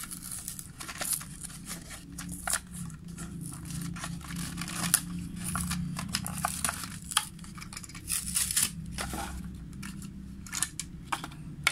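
The cardboard-and-plastic blister pack of a die-cast toy car being torn open by hand: tearing card and crinkling plastic, with many sharp cracks and snaps, over a low steady hum.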